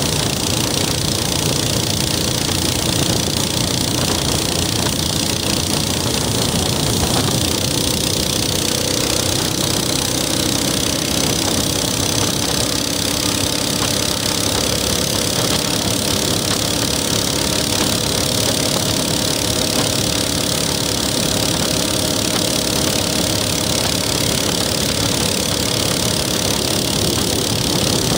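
Minibike engine running steadily while riding along at cruising speed, mixed with a steady rush of wind and road noise.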